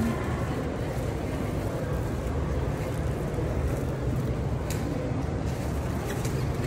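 Steady low rumble of shopping-mall background noise, with no clear voices.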